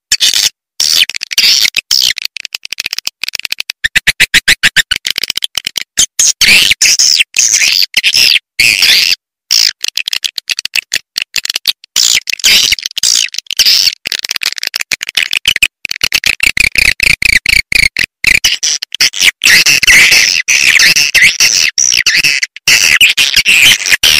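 Recorded swiftlet calls used as a lure to draw swiftlets into a nesting house: a dense, high-pitched stream of rapid chirps and twitters from many birds at once, broken by frequent brief gaps.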